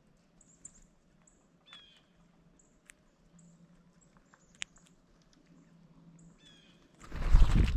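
Faint bird calls and chirps with a few small sharp taps. Near the end comes a loud rushing burst, heaviest in the low end, lasting about a second.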